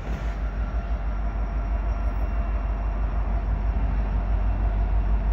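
Two EMD SD70M-2 diesel-electric locomotives of a slow-moving freight train, running with a steady low rumble and faint steady tones above it as the train creeps toward a signal.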